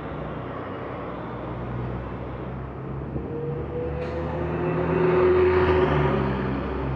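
Road traffic heard from a moving bicycle: the steady engine rumble of a city bus pulling away ahead, then a vehicle passing close, loudest about five seconds in.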